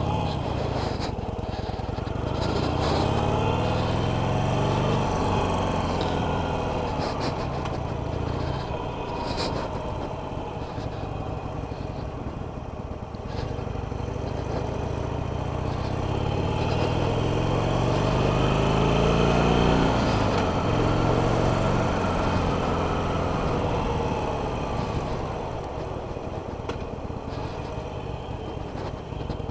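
Harley-Davidson Sportster 883 Iron's air-cooled V-twin engine pulling away and accelerating, its pitch climbing, dropping back as the rider eases off, then climbing again near the middle before falling away, with wind rush over a helmet headset microphone.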